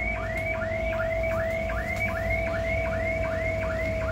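A distant electronic alarm, likely a car alarm, sounding a short rising chirp over and over at about three a second, with a steady tone beneath it.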